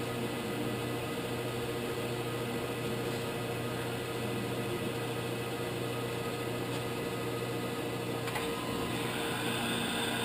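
Gallmeyer & Livingston Grand Rapids surface grinder running, its spindle drive motor and hydraulic pump giving a steady hum with several constant tones. A click comes about eight seconds in, and a higher whine joins after it.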